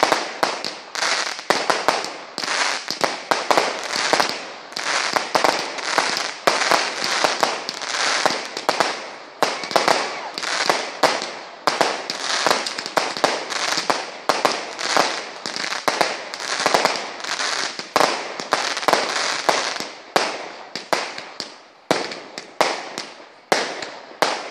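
Category 2/3 consumer fireworks, a multi-shot cake firing shot after shot, each shot bursting into a shower of crackling sparks. Loud reports come every half second to a second, over a near-continuous crackle.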